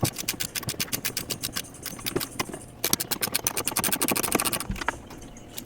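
Hand socket ratchet clicking rapidly and evenly as it loosens a bolt on a BMW E46's rear bumper, in two runs with a short pause between them about two and a half seconds in.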